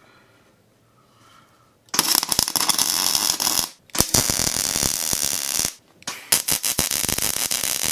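MIG welder, a Miller Multimatic 200, arc-welding tacks on steel: three crackling stretches of about a second and a half each, the first starting about two seconds in, with short breaks between them as the gun is lifted.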